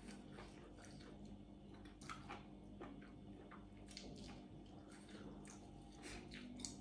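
Faint mouth sounds of a person chewing sticky rice and food: small wet smacks and clicks scattered throughout, over a low steady hum.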